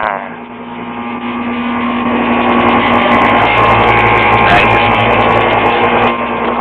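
Goodman heat pump outdoor unit running with a loud, rattling mechanical hum. It grows louder over several seconds, then drops back about six seconds in.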